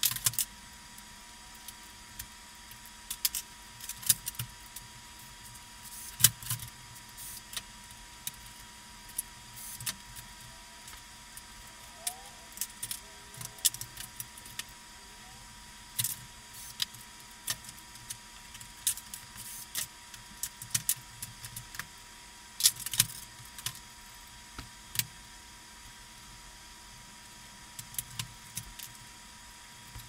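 Metal parts of a Smith Corona electric typewriter's mechanism clinking and rattling as it is handled and lifted out of its plastic base, in scattered sharp clicks and clatters, the loudest about six seconds in and again a little past twenty seconds.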